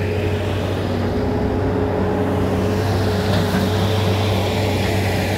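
An engine running steadily, a low even drone with a faint steady whine above it.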